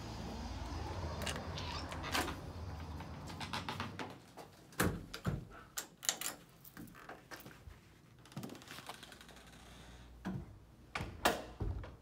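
A building entry door being opened and let shut: a run of sharp clicks and knocks from the handle, latch and door, the loudest a few seconds apart in the middle, with more knocks near the end. A low steady hum at the start fades away.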